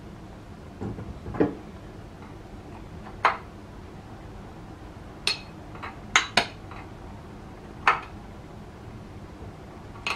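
Steel spanners clinking and knocking against a bolt head as the oil filter housing is tightened: about half a dozen sharp metallic clinks at irregular intervals.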